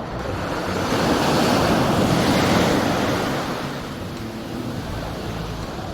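Ocean wave breaking and washing up the beach, swelling over a second or so and fading away after about three seconds.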